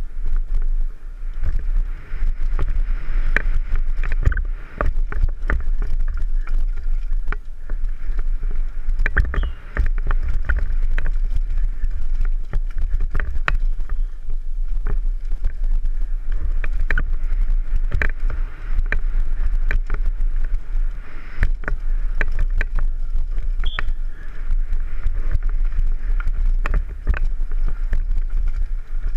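Downhill mountain bike running fast over a dirt trail, its frame and chain rattling with frequent sharp clicks and knocks over roots and rocks, under a heavy, steady rumble of wind on the helmet camera's microphone.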